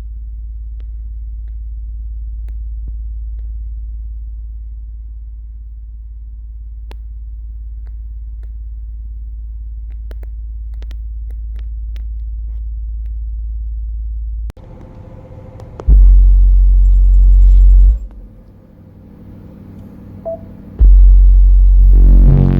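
A steady deep rumble. Then, after an abrupt change about fourteen seconds in, a Rockville Punisher subwoofer fires two very loud deep bass burps of about two seconds each, on a high-power amplifier.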